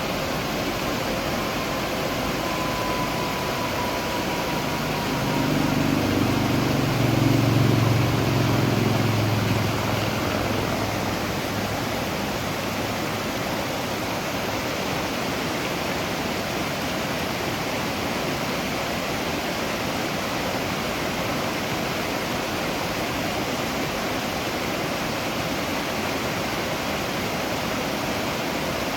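Waterfall: a steady rush of falling water. From about five seconds in, a low rumble swells for a few seconds and fades out by about ten seconds in.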